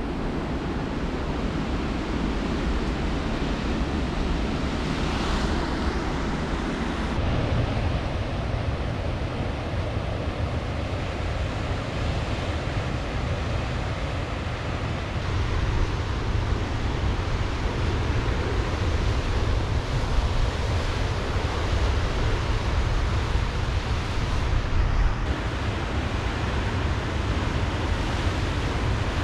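Ocean surf washing in steadily, with wind rumbling on the microphone; the low rumble grows heavier about seven seconds in.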